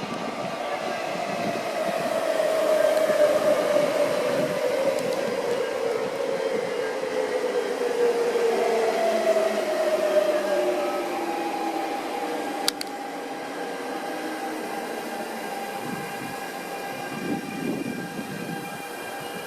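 MTR Adtranz-CAF electric multiple unit pulling out of the station: running noise with a motor whine whose tones slide down in pitch over the first ten seconds and then hold steady, loudest a few seconds in and slowly fading. A single sharp click about two-thirds of the way through.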